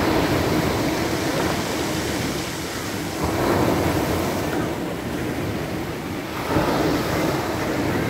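Surf breaking on a pebble beach at the waterline: a steady wash of water with three waves crashing in, at the start, about three seconds in, and about six and a half seconds in.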